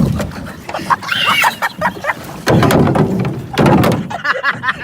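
Yelling voices over several dull thumps, as a person falls into the back of a canoe.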